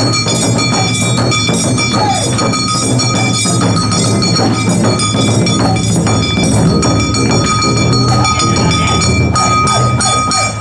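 Awa odori dance music: drums and a ringing metal bell or gong keeping a dense, even beat.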